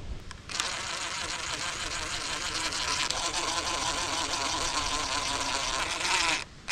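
Cordless impact driver running in one steady, high buzzing rattle for about six seconds, tightening the carburetor's mounting bolts down onto its gasket. It starts about half a second in and cuts off suddenly near the end.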